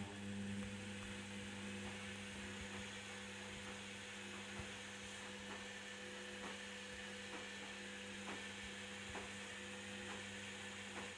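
Candy Activa washing machine running its motor during the Cottons 40° wash: a steady electrical hum with a faint knock about once a second, starting abruptly and cutting off after about eleven seconds.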